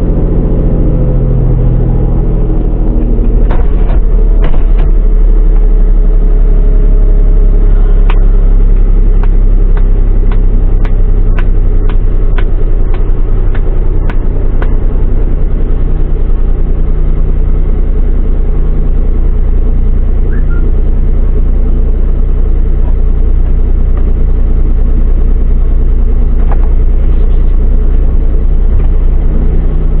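Car engine running, heard from inside the cabin as a steady low rumble, with a string of light clicks from about eight to fifteen seconds in.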